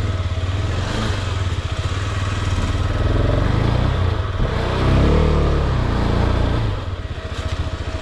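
Adventure motorcycle's engine pulling the bike up a rutted dirt slope, revving harder about five seconds in and easing off near the end.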